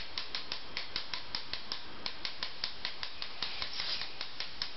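Small wind-up toy penguin ticking as its clockwork runs down on a hardwood floor: an even, rapid clicking, about five clicks a second.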